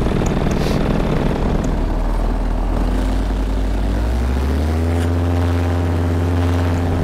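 Paramotor engine and propeller running steadily, then rising in pitch about four seconds in and holding at a higher note as the throttle comes up for a launch run.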